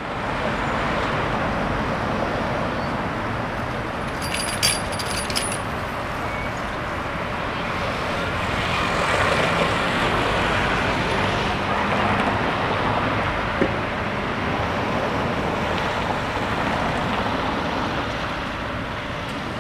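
Street traffic at a city tram junction: a steady rumble of passing cars. About four seconds in comes a quick cluster of sharp clicks, and a single sharp knock follows a little past halfway.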